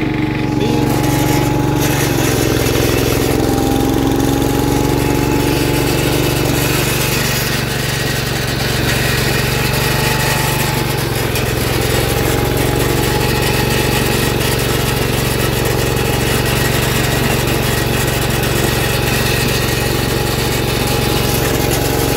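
John Deere 112 garden tractor's single-cylinder engine running steadily under load while driving a rear-mounted tiller through dry, stony soil. The engine note shifts slightly a couple of times as the load changes.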